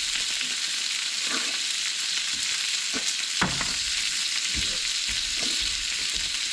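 Food sizzling steadily on a hot barbecue, with a couple of light knocks about halfway through.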